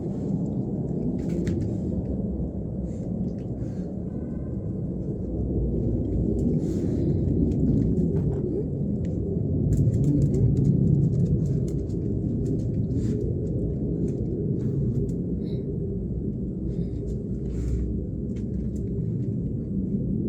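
Low, steady rumble of an airplane passing overhead, swelling about halfway through, with a few faint clicks.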